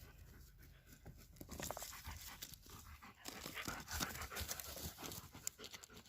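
A dog panting faintly in quick breaths, mixed with small clicks and rustles.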